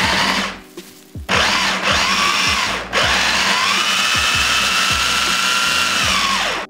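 Electric mini food chopper's motor running in pulses as it purees cooked squash, carrots and zucchini with broth. A short run, a pause just under a second in, a second run, then a longer steady run whose whine rises slightly in pitch before it cuts off at the end.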